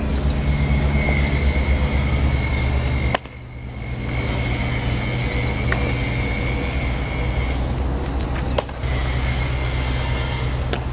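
Steady low outdoor background hum, with a few sharp pops of a baseball landing in a leather glove during a game of catch. The background cuts out briefly about three seconds in.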